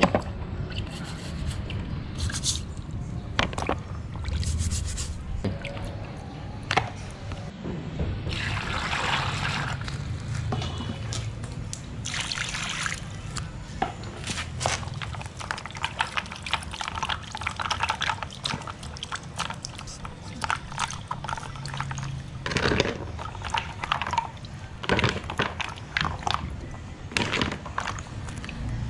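Clams being washed by hand in plastic basins of water: water sloshing, splashing and dripping, with repeated sharp clicks of the shells knocking together.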